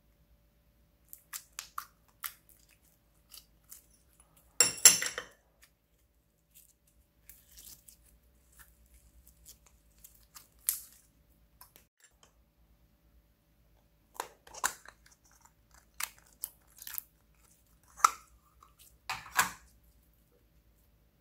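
Glitter slime being stretched and squeezed by hand: scattered soft clicks and crackles, with a loud squelching burst about five seconds in and several more in the second half.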